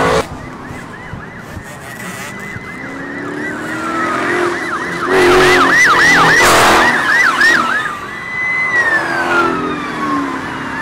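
Police car siren: a slow wail, then a fast yelp through the middle, and a long falling sweep near the end as it winds down. A car engine revs loudly during the yelp.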